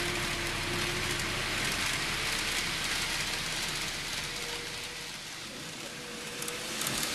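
N-gauge model train (an E259-series set) running along the layout track: a steady hissing rattle of small wheels on rail with a faint motor whine. It eases off about five seconds in and builds again near the end as a train comes closer.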